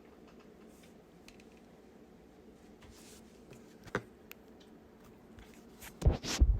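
Quiet room with faint rustling and a small click about four seconds in, then near the end a loud, sudden burst as a person begins to sneeze.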